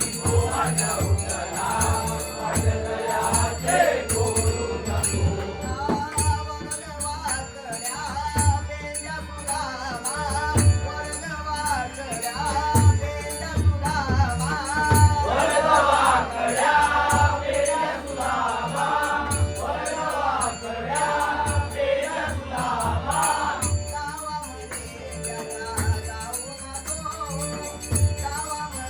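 Traditional devotional bhajan singing: a lead voice with others joining, sung over a steady drum beat and jingling hand cymbals keeping the rhythm.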